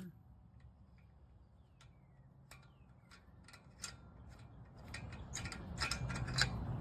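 Quiet handling sounds while moving between lug nuts: scattered light metallic clicks and rattles, with a low rustle that grows louder from about five seconds in. The impact wrench is not running.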